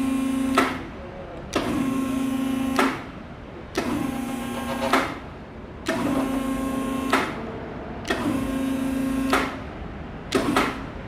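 AC electric hydraulic power unit of a mobile scissor lift table running in short runs of about a second, roughly every two seconds, with a click at each start and stop, jogging the table upward. Each run is a steady hum, and the last one near the end is brief.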